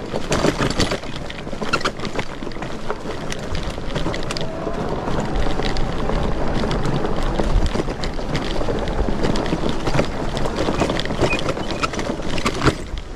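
Dual-motor electric fat bike (Bafang BBSHD mid-drive and G62 hub motor) ridden over a rough dirt trail: steady tyre and wind noise with frequent clicks and rattles from the bumps, and a faint motor whine that rises in pitch around the middle.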